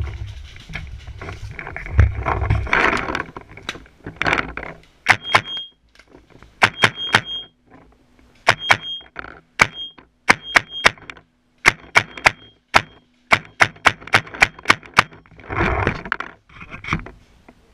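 Paintball fire: dozens of sharp cracks in quick strings of several shots a second, separated by short pauses. Before the shooting and again near the end there is rumbling movement noise.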